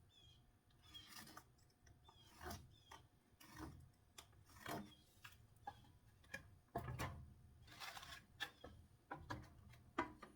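Faint, irregular scraping strokes and light knocks from 1x4 boards being marked out with a pencil along a square, with a couple of sharper knocks later on.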